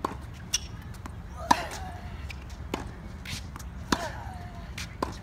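Tennis balls struck by racket strings and bouncing on a hard court in a practice rally: sharp pocks about once a second. The player grunts with a falling pitch on the two hardest hits, about a second and a half in and near four seconds in.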